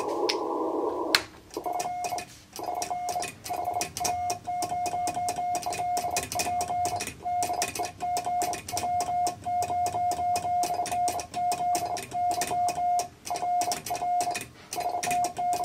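Morse code sent by hand on a bug-style mechanical key: a steady tone near 700 Hz keyed on and off in short and long elements, with the key's contacts clicking throughout. For about the first second there is receiver band hiss, which cuts off suddenly before the keying starts.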